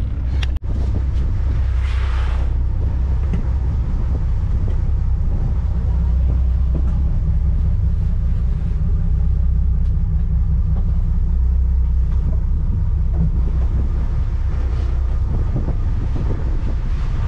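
Fishing boat's engine running steadily with a loud low drone; a brief hiss about two seconds in.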